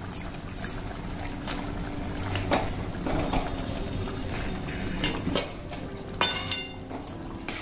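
Mashed fried brinjal dropped into simmering tamarind gravy in a metal kadai, with wet, sloppy stirring by a slotted steel spoon. The spoon knocks against the pan several times, and one knock near the end rings briefly like struck metal.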